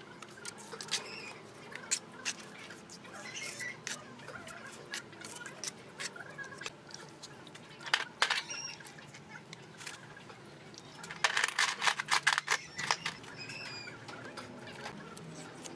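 Bricklaying with wet cement mortar: scattered scrapes and taps of a trowel and bricks, with a quick run of sharp taps a little past the middle. Birds chirp in the background.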